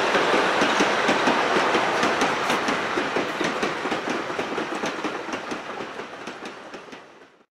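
Heritage passenger carriages rolling past on the track, their wheels clicking over the rail joints. The rumble fades as the train moves away, then cuts off just before the end.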